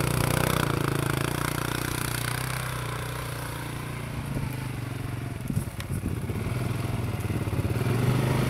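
Kymco MXU ATV engine running as the quad ploughs through deep snow. It fades as the quad moves off and grows louder again as it comes back up close near the end.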